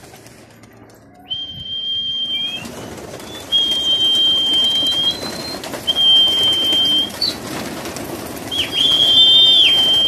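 A person whistling four long, steady, high notes, each about a second long, to send pigeons up out of their loft. Domestic pigeons cooing and flapping their wings lie underneath.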